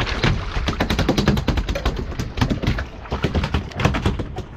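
A landed fish thrashing on the boat deck, its tail beating against it in a rapid, irregular rattle of sharp knocks.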